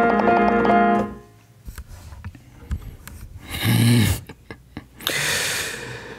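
Digital piano playing a dense chord passage that stops about a second in. Soft handling clicks follow, then two short breathy sounds close to the microphone.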